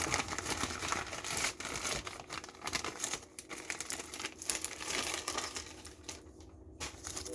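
Packaging being handled, crinkling and rustling in irregular bursts that die down about six seconds in.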